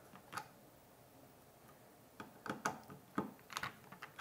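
Small clicks and knocks of plastic and metal as an M5-to-M8 shaft coupler is worked free by hand from a 3D printer's Z-axis motor mount. One click comes shortly in, then a quick run of clicks in the second half.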